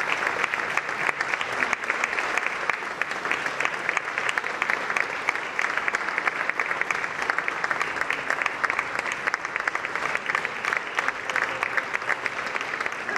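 Audience applauding after an opera performance: dense, steady clapping that eases off a little toward the end.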